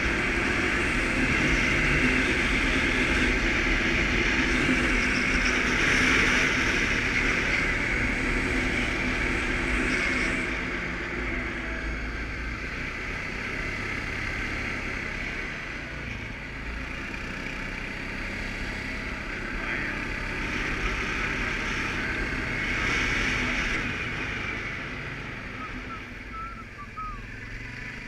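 Suzuki KingQuad ATV engine running under way, with road and wind noise; it is louder for about the first ten seconds, then eases off.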